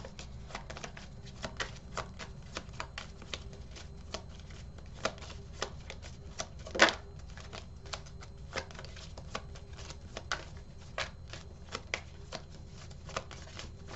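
Tarot cards being shuffled by hand: a run of short, irregular card snaps and flicks, a few a second, with one louder snap about seven seconds in.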